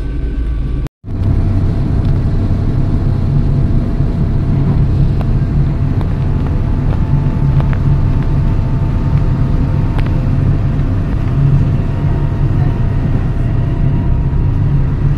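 Steady rumble of a passenger train running, heard from inside the carriage, with a low hum under it. The sound drops out completely for an instant about a second in.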